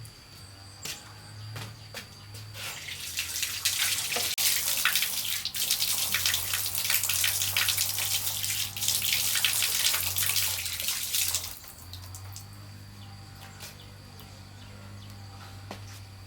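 Water running or pouring with a steady splashing that starts about three seconds in and stops abruptly near the end.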